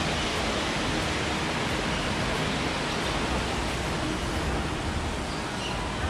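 Steady, even rushing noise of falling water.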